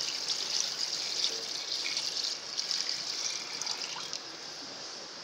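Water pouring from a steel bowl into a large aluminium pot and splashing into browned mutton masala, as water is added to the haleem base after frying. The pour eases off about four seconds in.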